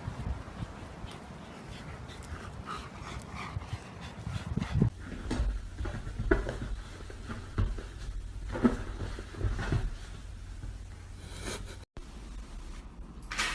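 A dog panting, with a few short, louder sounds in the middle.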